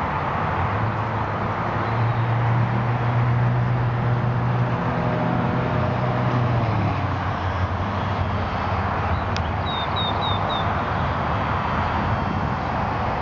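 Outdoor city background of steady wind and traffic rumble. A low hum swells and fades over the first half, and a small bird chirps four quick times shortly after a single click.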